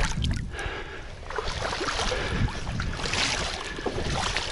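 Shallow pond water splashing and sloshing irregularly as bare hands plunge in and grope through the muddy bottom, grabbing for a tench.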